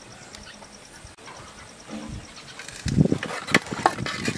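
A metal ladle and steel bowl clink and scrape against a metal cooking pot as a bowl is lifted out. There are several sharp clinks in the second half, with faint crickets chirping underneath.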